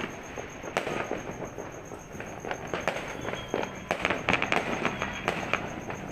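Fireworks and firecrackers going off in many irregular sharp cracks and bangs over a continuous crackling din, with a cluster of louder cracks around the middle and later on.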